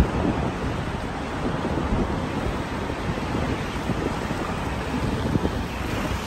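Steady rumble of a car driving along, heard from inside the cabin, with wind on the microphone.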